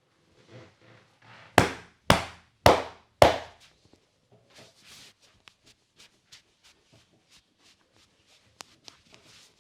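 Four loud slapping strikes of the masseur's hands during a head massage, about half a second apart, followed by softer rubbing and light tapping of hands on hair and skin with a single sharp click near the end.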